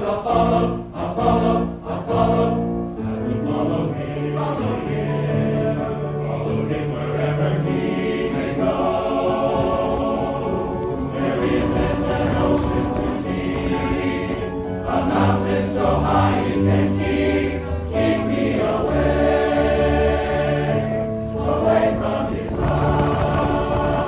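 Choir singing in harmony, several voices holding long chords that change every second or two.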